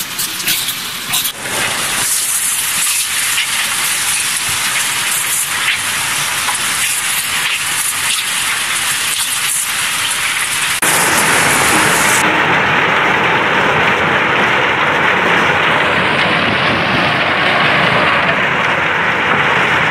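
Rotary log-debarking drum running with eucalyptus logs tumbling inside it, wood knocking on wood and on the steel walls in a dense, continuous clatter. It becomes louder and fuller about halfway through.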